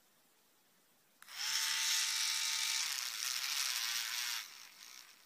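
Small handheld electric rotary tool running: its motor whines up to speed about a second in, runs steadily for about three seconds, then winds down with a falling pitch. It is being used to polish a model locomotive's wheels with Pikal compound.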